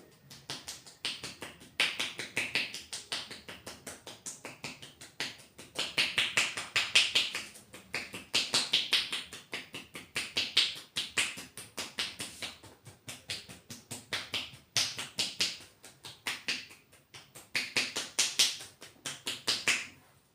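Rapid rhythmic hand strikes of a percussive massage, palms or fingers tapping on skin several times a second in bursts that swell and fade every couple of seconds.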